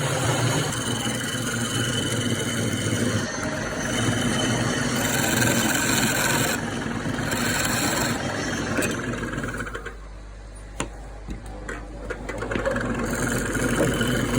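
An abrasive tool scraping and rubbing steadily against wood. It eases off for a couple of seconds about ten seconds in, where a few sharp knocks are heard, then carries on.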